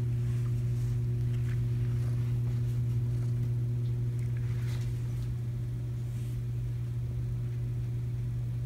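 A steady low hum, with a few faint soft rustles scattered through it.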